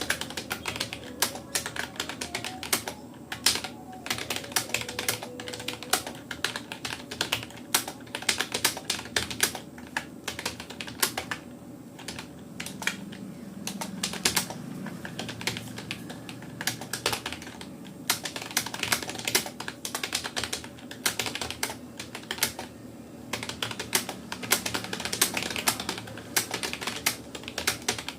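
Fast touch typing on a Rapoo computer keyboard: a steady, irregular run of key clicks with brief pauses between bursts.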